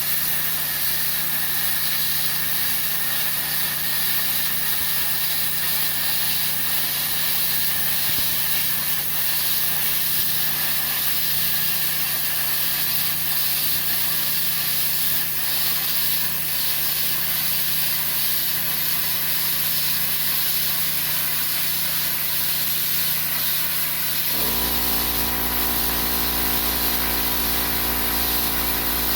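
Plasma cutter cutting steel: a steady, loud hiss of the air-plasma arc. About 24 seconds in, a motor-driven machine starts up beneath it with a steady, pitched hum.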